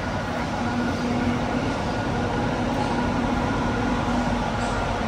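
Electric metro train running at speed, heard inside the carriage: a steady running noise with a constant humming tone.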